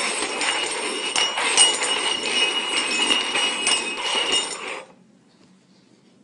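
Cups being slid and shuffled around on a hard tabletop, a continuous scraping with small knocks and clinks, stopping abruptly about five seconds in.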